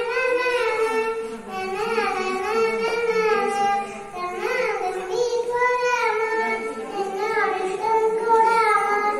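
A young girl singing solo into a handheld microphone, a melody of held notes that bend and waver in pitch, with short breaths between phrases.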